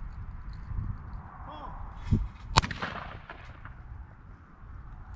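A single shotgun shot at skeet cracks about halfway through and rings out briefly, with a smaller knock about half a second before it, over a steady low rumble.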